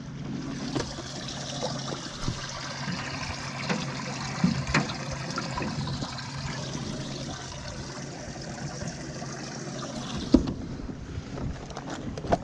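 Water and wind noise in a bass boat over a steady low hum that fades about ten seconds in, with a few sharp knocks, the loudest just after the hum fades.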